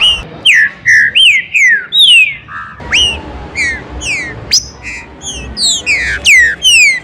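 Green-winged saltator (trinca-ferro) singing: a fast run of loud, clear whistled notes, most sliding downward and some hooking sharply upward.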